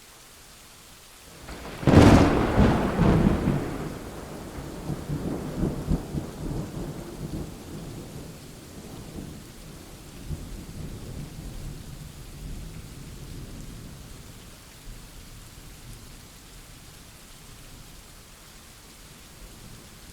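Thunderclap: a sharp crack about two seconds in, then a long rolling rumble that fades out over about ten seconds, over steady rain.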